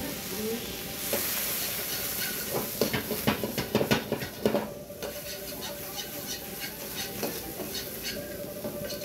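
Diced carrots and peas frying in a hot wok, a steady sizzle, while a metal wok ladle scrapes and clanks against the pan. The loudest clatter comes in the middle as the wok is lifted and tossed, followed by lighter stir-frying with the ladle.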